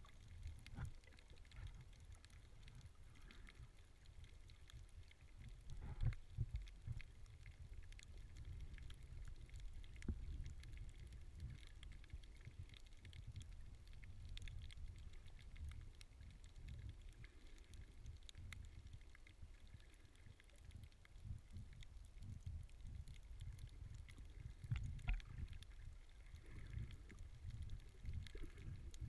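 Muffled underwater rumble of water moving against a camera in its waterproof housing, with faint scattered clicks and a couple of louder knocks, one about six seconds in and another a few seconds before the end.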